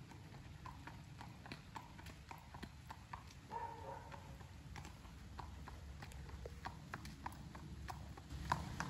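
Faint hoofbeats of a gaited horse moving along a paved path: a quick, even run of sharp clip-clops.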